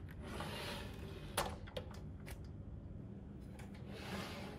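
Bi-folding cabinet door on HG-JC70 centre hinges being pulled open: a faint rubbing swish as the panels move and fold, three light clicks between about one and a half and two and a half seconds in, then another swish.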